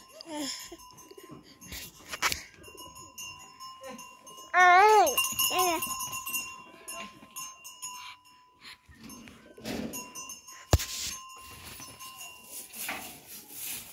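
Goat bleating: one loud wavering bleat about four and a half seconds in, with a shorter bleat just after. A single sharp knock comes near eleven seconds in.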